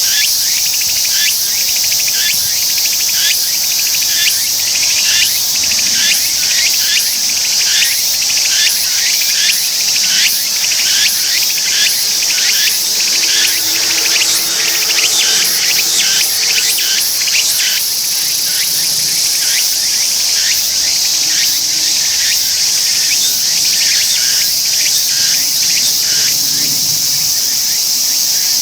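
Tsukutsukuboshi cicada (Meimuna opalifera) singing: a rhythmic pulsing song repeating about three times a second over a steady high-pitched buzz. The pulsing weakens about two-thirds of the way through while the buzz carries on.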